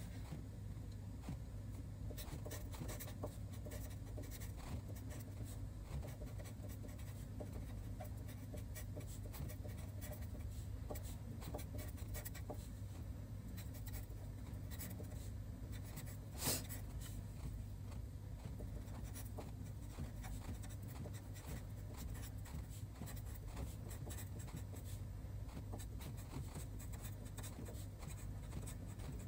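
A pen scratching on paper as Chinese characters are handwritten, stroke after short stroke, with one sharper tap about sixteen seconds in. A faint steady low hum runs underneath.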